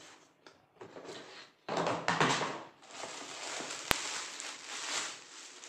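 Cardboard shoe box being opened, then a plastic packaging bag rustling and crinkling as sandals are pulled out of it, starting under two seconds in. A single sharp click about four seconds in.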